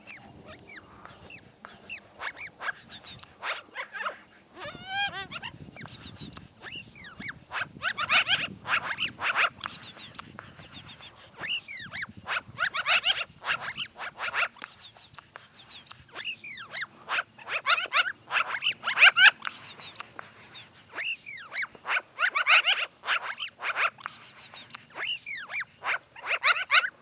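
Black-billed magpie giving begging calls: clusters of many short calls, each rising and falling in pitch, coming in bursts every few seconds with brief pauses between.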